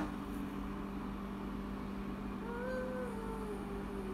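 Steady hum of a running overhead projector's fan, with a sharp click right at the start. About two and a half seconds in, a cat meows once, a call of about a second that falls in pitch.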